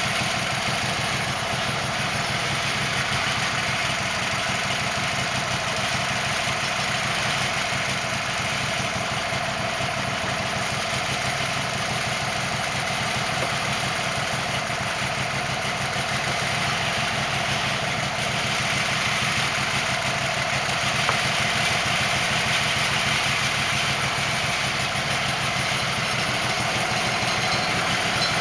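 Wood-Mizer portable band sawmill running steadily, its engine droning evenly, getting a little louder in the last third.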